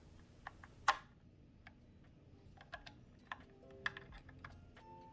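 Light, irregular clicks and taps from a plastic battery charger and AAA batteries being handled, with a sharper click about a second in. Faint background music notes sound under the clicks near the end.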